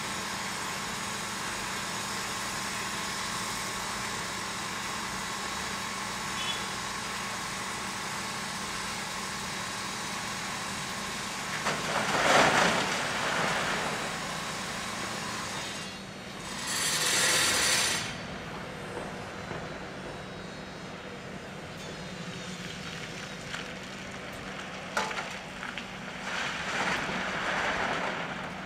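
Heavy diesel excavator and articulated dump truck running steadily while the excavator tips bucket loads of rock into the dumper's steel bed. There is a loud crash of rocks about twelve seconds in, another a few seconds later, and more rattling of rock near the end.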